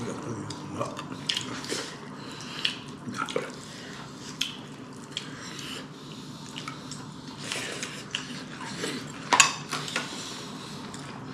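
Spoons and plates clinking as people eat: scattered light clinks and taps, with a sharper cluster about nine seconds in.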